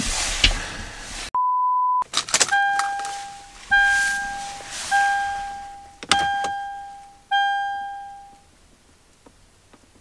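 A short steady censor bleep, then five bell-like dings about a second apart, each ringing out and fading, the last one brighter. The dings count off the five seconds that the driver's-door unlock switch has to be held to reprogram the auto door locks.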